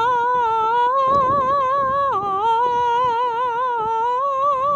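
A woman singing one long sustained 'ah' with vibrato as a vocal warm-up exercise. It dips briefly in pitch about two seconds in, then rises back.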